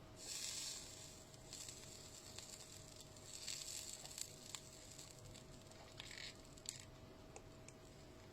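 Faint handling noise from hands-on repair work on a lithium battery pack: several short soft hissing rustles and a few light clicks.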